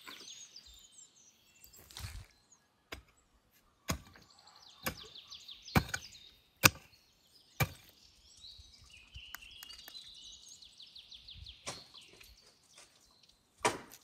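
Metal spade blade striking and cutting into stony, lumpy soil while digging a pit: about nine sharp chops roughly a second apart, with a pause in the middle. A songbird sings quick trilled phrases twice in the background.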